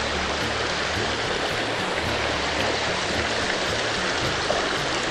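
Shallow stream running over stones: a steady rushing and babbling of water.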